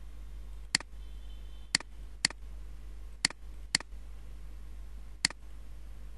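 Computer mouse button clicking: six sharp, single clicks spaced unevenly over a few seconds, over a steady low hum.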